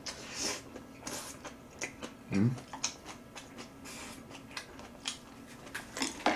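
A person chewing food close to the microphone, with wet mouth sounds and light clicks of chopsticks against food and bowls. A brief vocal sound about two and a half seconds in.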